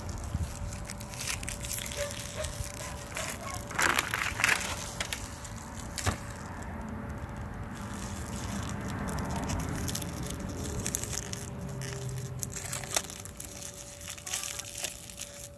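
Crinkling and crackling of small plastic toy wrappers being peeled and torn open by hand, with scattered sharp crackles and a denser stretch of crinkling about four seconds in.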